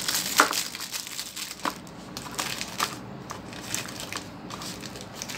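Clear plastic wrapping crinkling and crackling as a new MP3/FM player module is unwrapped by hand. The crackling comes in irregular bursts, loudest in the first second or so, then fainter and sparser.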